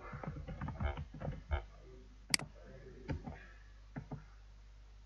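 Computer keyboard keys clicking in a quick run of typing for about the first second and a half, then a few single, separate clicks, the sharpest about two and a half seconds in.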